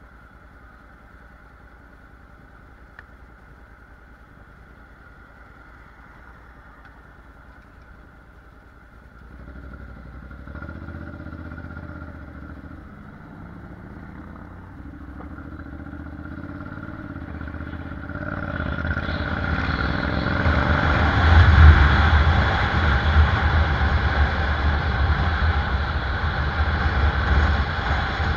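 Honda NC750X's parallel-twin engine ticking over while stopped, then pulling away about nine seconds in. It builds speed from about eighteen seconds in, with wind rushing over the microphone growing loud.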